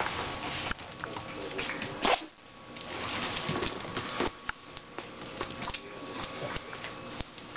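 A puppy moving about on a blanket and a tile floor: rustling of the fabric and scattered light taps, with one loud knock about two seconds in.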